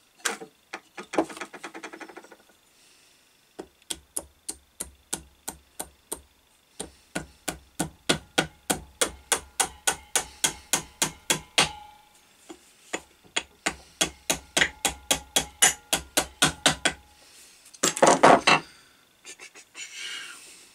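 Small hammer tapping a pulley onto an electric motor's shaft: dozens of quick, even taps, about four a second, in two long runs with a brief pause between. A short, louder scraping burst near the end.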